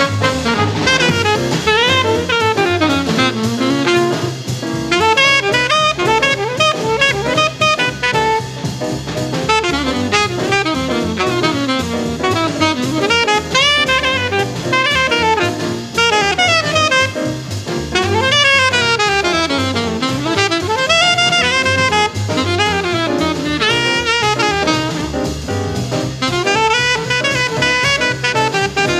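Fast bebop jazz from a 1953 quintet recording of alto saxophone, trumpet, piano, bass and drums. A single horn plays a fast, winding solo line over steady walking bass, piano comping and drums.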